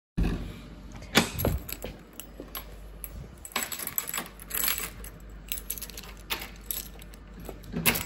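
Keys jangling and scattered metal clicks and knocks from a front door's lock and handle as the door is opened.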